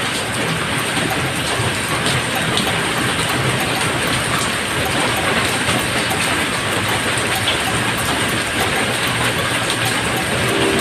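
Steady, loud rushing noise with no distinct strikes or pauses.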